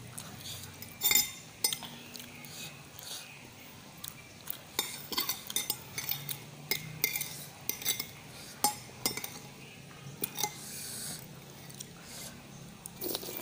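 Metal spoon and fork clinking and scraping against a ceramic plate of instant noodles, in many short, irregular clicks, the loudest about a second in.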